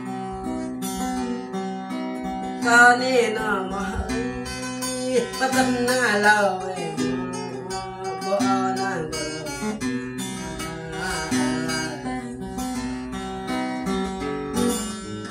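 Acoustic guitar strummed in a steady rhythm, with a man's voice singing over it on and off from about three seconds in.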